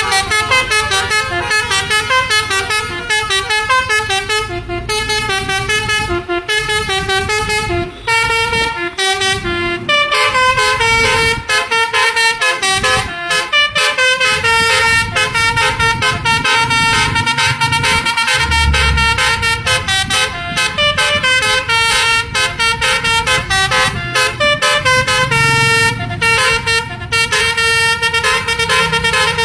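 A bus's 'telolet basuri' musical air horn playing a fast melody, note after note without a break.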